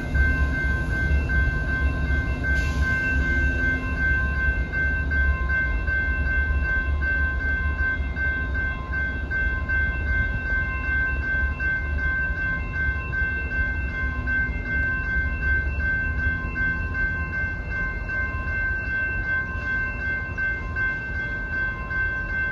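Railroad crossing bells ringing steadily over the low rumble of a passing train; the rumble fades away over the second half.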